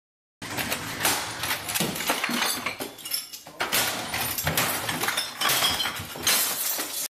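Things being smashed by a person swinging at them: repeated crashes with clinking and breaking, starting about half a second in, with a short lull about three seconds in before the smashing goes on.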